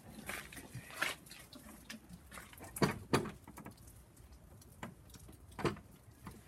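Scattered knocks and rustling from someone moving about and handling things in the dark, with a pair of louder knocks about three seconds in and a few lighter ones around them.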